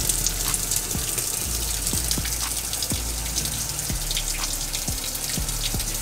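Top-loading washing machine filling: a steady stream of water pouring into the drum onto the wash load.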